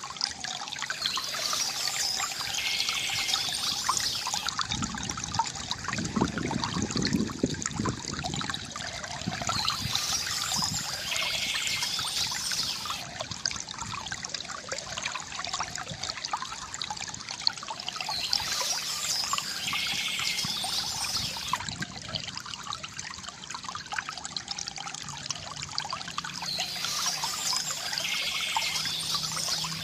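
A stream trickling and gurgling steadily, with a bout of birdsong recurring about every eight or nine seconds over the water, four times in all.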